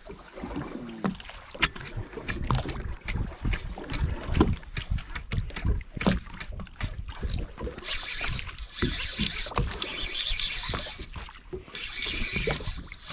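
Irregular knocks and clicks aboard a small fishing boat drifting offshore, with water against the hull. From about eight seconds in, a high whirring sound comes and goes.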